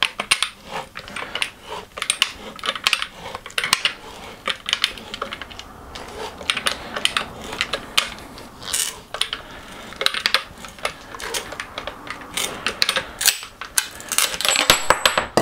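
Pipe cutter being turned around an aluminium-alloy bicycle fork steerer tube, its cutting wheel scraping and clicking in a dense, irregular run as it cuts into the metal. Just before the end comes a brief louder cluster with a thin high ring, as the cut goes through.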